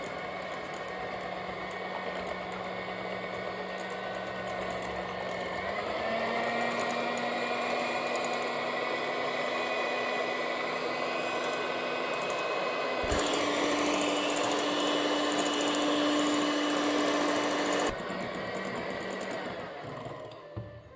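Moulinex electric hand mixer running, its beaters whipping eggs and sugar in a glass bowl until they increase in volume. The motor's steady whine steps up in pitch twice, about six and thirteen seconds in, then cuts off near the end.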